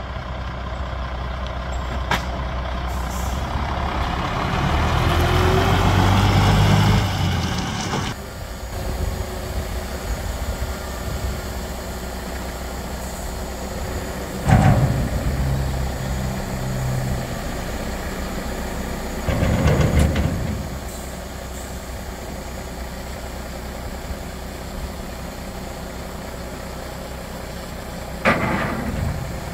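Heavy tipper truck's diesel engine running, swelling louder for a few seconds early on, then settling to a steadier run. Three short loud bursts about halfway, two-thirds of the way and near the end fit air-brake releases.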